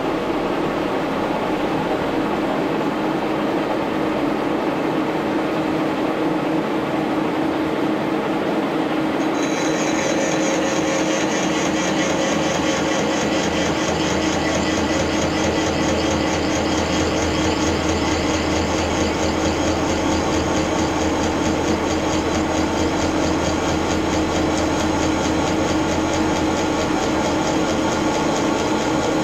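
1942 Brown & Sharpe No. 2 milling machine running in horizontal mode, its spindle and gear drive giving a steady hum and drone. About nine and a half seconds in, a high hiss joins in and continues as the quarter-inch-wide, 5-inch cutter on the horizontal arbor cuts a slot in aluminum.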